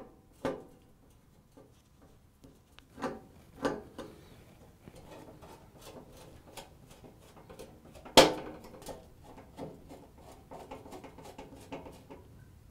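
A long screwdriver driving a screw into a gas range cooktop: scattered small metal clicks and ticks, with one sharp click about eight seconds in.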